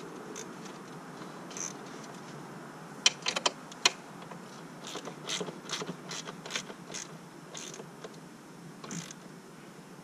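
Hand socket ratchet clicking in short runs as the 17 mm nuts on the top swing-arm axle-carrier bolts of a Yamaha Banshee are tightened, about three clicks a second at its busiest.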